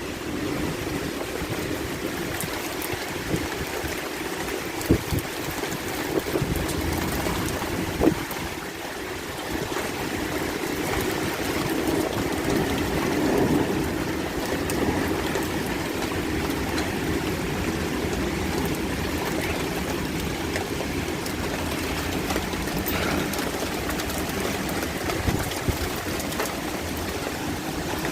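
Heavy rain pouring down steadily, with water running and trickling; a few short knocks stand out, the sharpest about eight seconds in.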